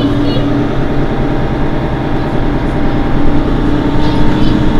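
Mercedes-Benz Citaro C2 city bus's diesel engine idling steadily with the bus at a standstill, a constant low hum heard from the rear of the bus.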